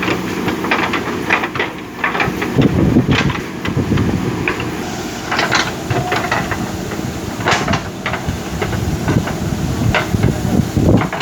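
JCB backhoe loader's diesel engine running steadily under load, with repeated irregular clanks and knocks from the digging bucket and arm working the soil.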